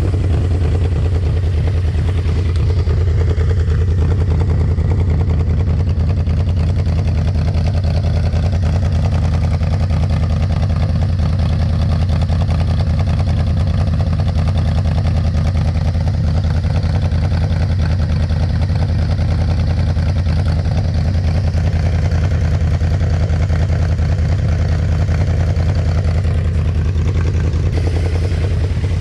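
1200 cc V4 engine of a 2000 Yamaha VMAX idling through its modified exhaust: a steady, deep, even low note.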